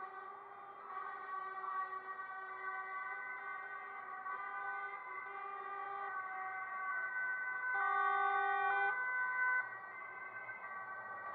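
Truck horns sounding in several overlapping steady tones that switch on and off, loudest for about a second around eight seconds in.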